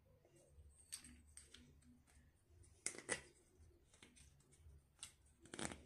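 Faint scattered clicks and rubbing of a toilet tank bolt and its rubber sealing washer being handled and fitted together by hand, the loudest clicks about three seconds in and near the end.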